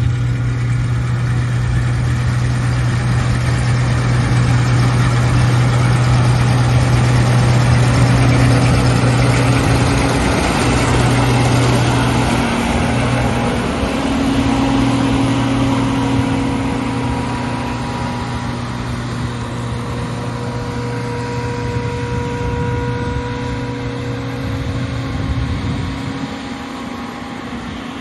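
Combine harvester at work: a steady diesel engine drone under a broad clatter and whirr of machinery, the tones shifting around the middle and the low drone falling away near the end.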